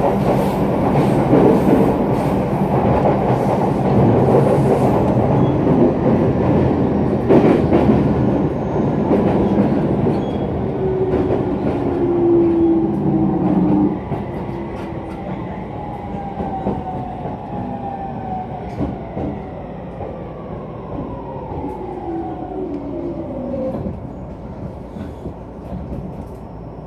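Unrefurbished JR East E231-series commuter train running and braking into a station, heard from inside the car. Loud rolling and rail-joint noise for the first half drops off suddenly about halfway. Then the traction inverter's whine falls steadily in pitch as the train slows to a stop.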